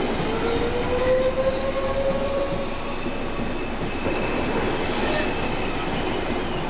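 SBB passenger coaches rolling past along a station platform, their wheels running on the rails with a steady rumble and a faint squeal that rises slightly in pitch during the first couple of seconds, then holds.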